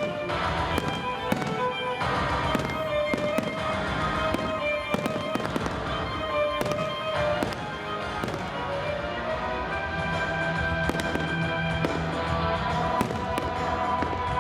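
A fireworks display going off in rapid, irregular bangs and crackles, with music playing alongside.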